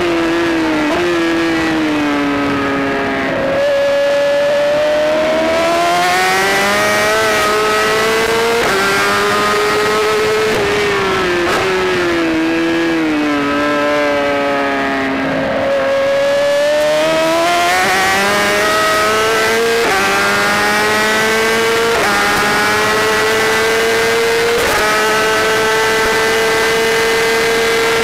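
Onboard sound of a road-racing superbike's engine at race pace over rushing wind. The engine note falls twice as the bike slows for corners, jumping up about three and a half seconds in and again just past halfway as gears go down. Each time it then climbs as the bike accelerates out through the gears.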